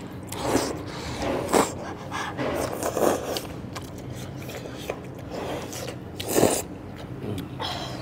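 Slurping and chewing of Shanxi knife-cut noodles in soup, in a series of short slurps, the loudest about six and a half seconds in.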